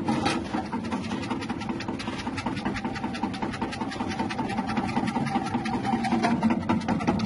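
Electric chip-slicing machine for cassava and potatoes running, driven by a small electric motor: a steady hum with a fast, even clatter over it.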